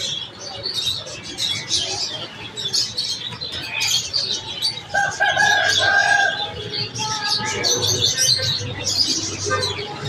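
Many small caged birds chirping at once, a dense, steady chatter. About five seconds in, a chicken gives a pulsed call lasting just over a second.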